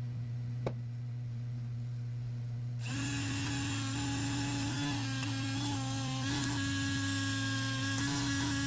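Dremel rotary tool switching on about three seconds in and running with a steady high-pitched whine. Before it starts there is only a low steady hum and a single click.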